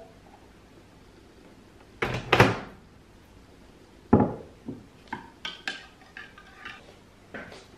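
Kitchen clatter of dishes and utensils being handled: two loud knocks about two seconds in, another about four seconds in, then a run of lighter clinks and knocks.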